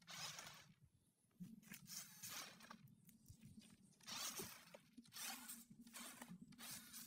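Small electric RC climbing car driven in short spurts up a dirt mound: faint bursts of motor and gear whirr with tyres scrabbling, stopping and starting about eight times.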